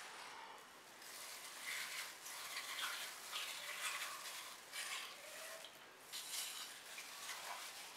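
Wet squelching of a plastic-gloved hand working fish pieces through a thick spice-and-gram-flour marinade paste, in irregular short bursts.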